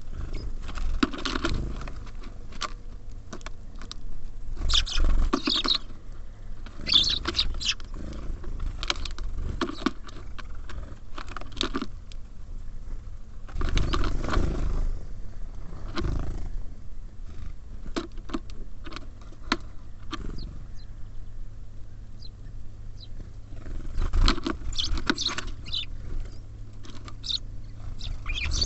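Small birds at a feeder: a busy run of sharp pecking and tapping clicks on the feeder, with short bursts of high chirps now and then. A few louder low flurries come midway and near the end.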